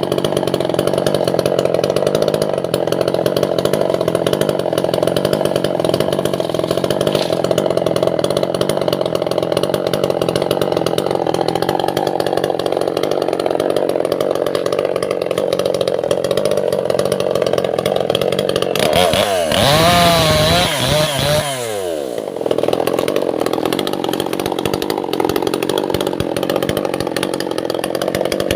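Two-stroke chainsaw running steadily at high revs while cutting albasia (sengon) wood. About 19 seconds in, its revs swing down and up several times for a few seconds, then it settles back to steady running.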